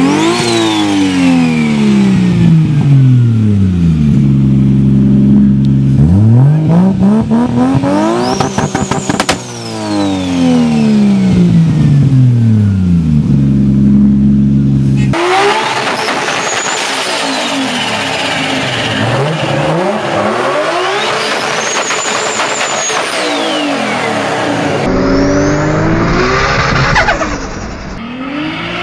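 Turbocharged car engines revved hard and let off, over and over, in three different cars one after another. The engine note climbs and falls with each rev, a high turbo whistle rises with it and winds down after each lift-off, and turbo flutter chatters as the throttle closes.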